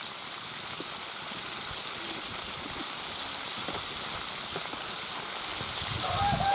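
Flour-coated chicken drumsticks deep-frying in hot oil: a steady sizzling hiss with light crackles. About six seconds in, a louder, lower scraping and churning comes in as a wire skimmer lifts the pieces out of the oil.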